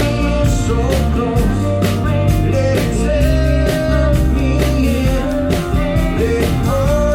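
Live rock song with a man singing over guitar, bass and drums, with regular drum and cymbal hits.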